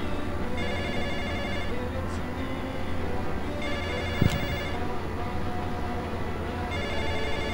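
Telephone ringing: three rings, each about a second long and about three seconds apart, over a steady low hum. A single sharp knock sounds a little past the middle.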